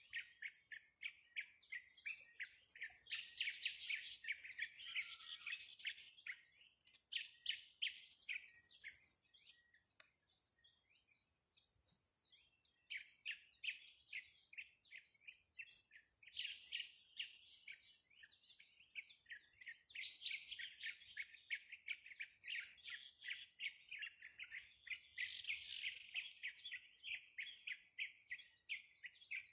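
Small birds chirping and twittering in rapid, high-pitched trills, several notes a second, with a brief pause about ten seconds in before the chirping resumes.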